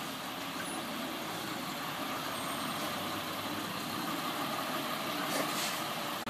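Diesel engine of an 18-wheeler tractor-trailer running steadily, a continuous low rumble.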